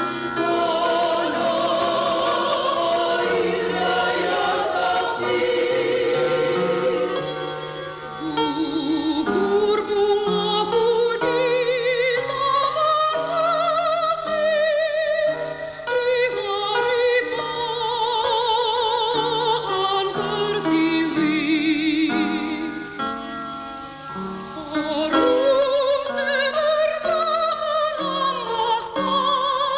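Music: a choir singing a slow melody with strong vibrato over instrumental accompaniment, the notes moving in steps.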